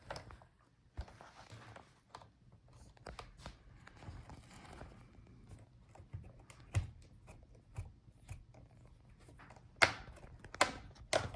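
Scattered light clicks and taps, with a few short, quiet scraping rustles, from hand work with a small screwdriver on a laptop's plastic bottom case while its screws are being removed. The sharpest clicks come in a quick cluster near the end.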